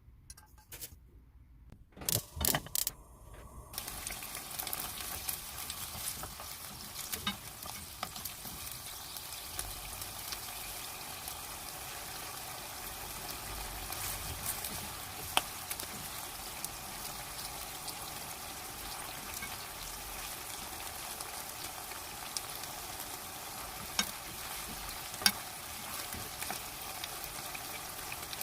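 Food sizzling as it is stir-fried in a deep frying pan, with a spatula knocking and scraping against the pan. A few knocks come about two seconds in, then a steady sizzle, broken by occasional sharp clicks of the spatula, starts about four seconds in.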